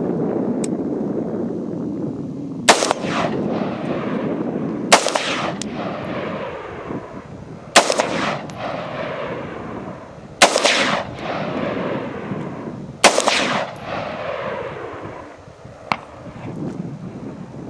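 Bushmaster XM15 AR-15 rifle fired five times in slow single shots, about two and a half seconds apart. Each shot is a sharp crack followed by a rolling echo that dies away over a second or so.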